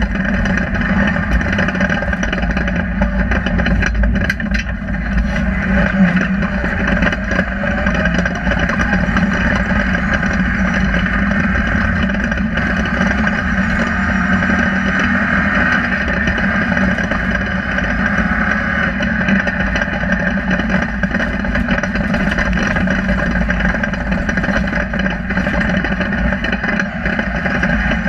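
Rally car engine running hard at stage speed, heard from inside the cabin; loud and steady, with road noise.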